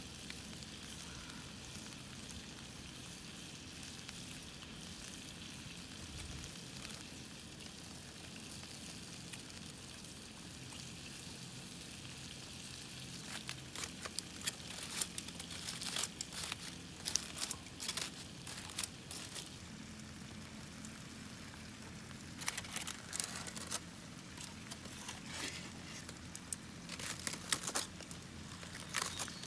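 Campfire hissing steadily as foil-wrapped bamboo shoots grill over it. From about halfway, irregular sharp crackles and crinkles come in.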